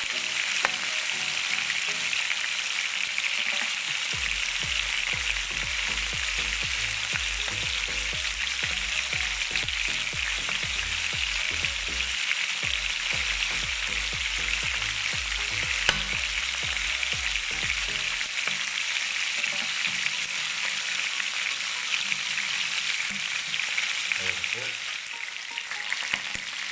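Chicken pieces browning in a little hot oil in a frying pan, a steady sizzle throughout, with a couple of sharp clicks.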